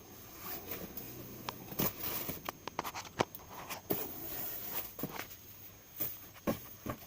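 Irregular light clicks and taps of gear being handled and shifted, with a few sharper knocks about two, three and four seconds in.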